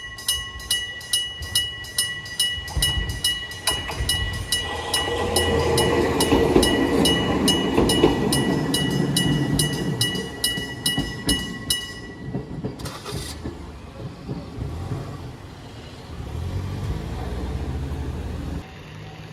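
Japanese level-crossing alarm bell ringing in fast, evenly repeated dings, about two or three a second, while a train passes through the crossing. The train's rumble swells to the loudest point of the clip and fades. The bell stops about two-thirds of the way through, leaving a lower rumble.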